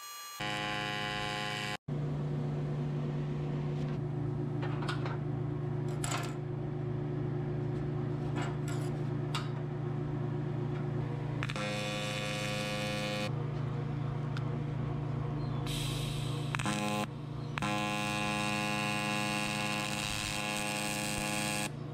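Miller TIG welder buzzing steadily as the arc runs, a mains-pitched hum through several short welding takes cut together, with a few light clicks from the work.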